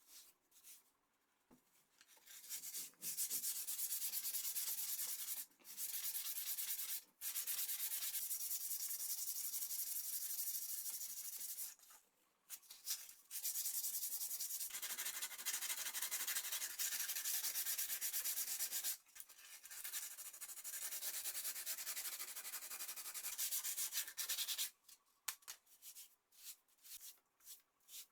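Steady abrasive rubbing, like hand sanding, in several long stretches of a few seconds each with short pauses between them.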